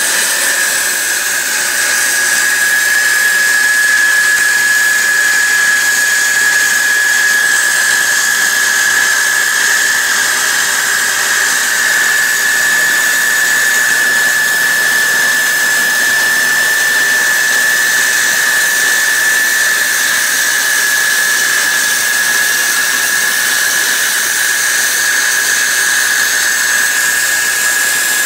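Case IH 2366 Axial-Flow combine running steadily while harvesting corn: an even, loud mechanical hiss with a steady high-pitched whine over it.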